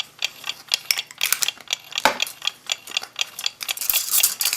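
Clock mainspring being coiled into its barrel by hand: irregular metallic clicks and light scrapes, several a second, as the spring steel catches and slides against the barrel.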